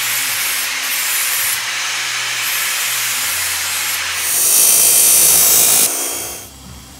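Power tools working metal: a handheld power tool running against metal, then an abrasive chop saw cutting through metal tube, louder and hissier from about four seconds in. The cutting stops about six and a half seconds in.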